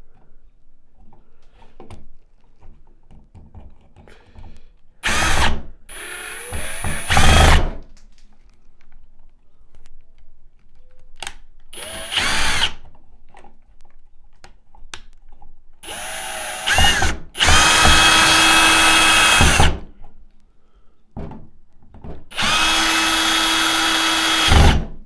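Power drill running in a series of bursts, several short and two longer runs of about two seconds near the end, with a steady motor whine, driving in screws.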